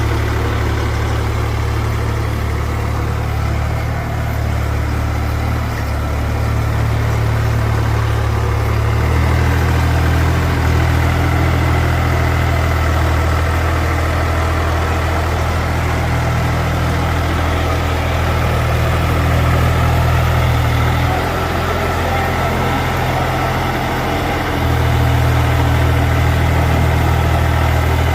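Diesel engine of a mini excavator running steadily at low revs. Its deep note shifts a little about a third of the way in, drops off for a few seconds and then comes back strongly near the end.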